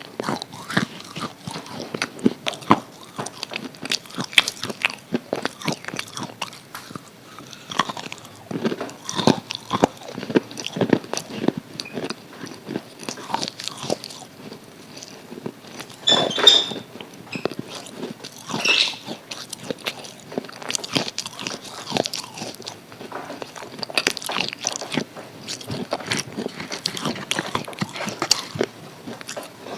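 A person biting into and chewing crispy KFC fried chicken close to the microphone: a steady run of irregular crunches and chews.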